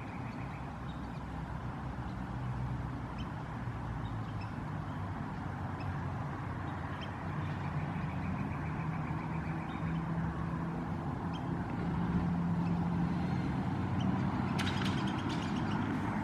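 Motor vehicle engine running with a steady low hum that rises in pitch about halfway through and grows louder. Faint high chirps come and go, and a quick run of sharp clicks sounds near the end.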